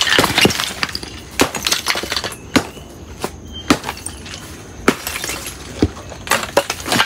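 Hand tools striking and breaking up rubble and earth: a dozen or so irregular sharp knocks and clinks, spaced roughly half a second to a second apart.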